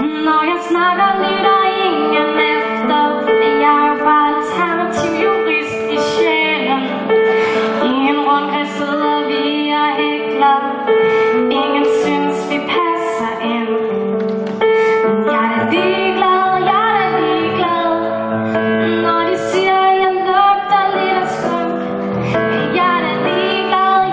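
A woman singing a song to keyboard accompaniment, her melody moving over steady held piano chords.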